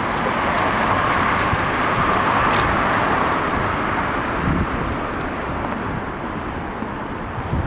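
Street traffic noise: a steady rush of road vehicles that is loudest over the first few seconds and eases off a little after about four seconds.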